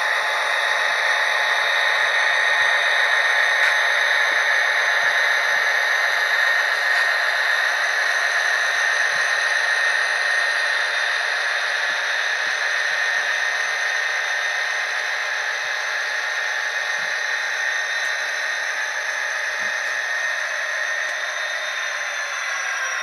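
Sampled EMD diesel prime mover sound from Tsunami sound decoders in HO-scale Athearn SD60 and SD40-2 models, played through small on-board speakers. It is a steady, thin engine drone and whine with no deep bass, and its tones slide downward right at the end.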